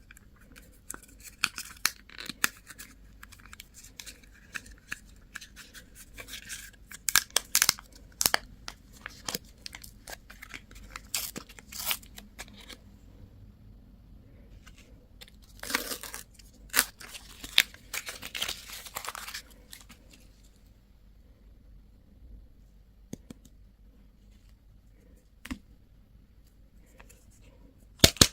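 Candy and toy packaging being handled and opened: crackling and crinkling wrappers with sharp clicks, and a longer tearing stretch a little past halfway. It goes mostly quiet near the end, apart from a few ticks and a final pair of sharp clicks.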